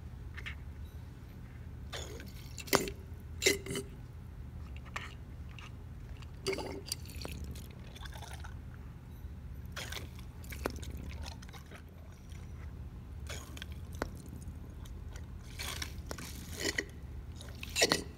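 Battery hydrometer drawing electrolyte from a lead-acid battery cell: the rubber bulb is squeezed and released, the acid gurgles and drips in the tube, with scattered small plastic clicks and squishes. A steady low hum runs underneath.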